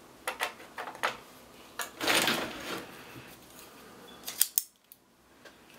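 A folding multi-tool being handled: several short sharp clicks, a brief rustle about two seconds in, and two more clicks past the middle.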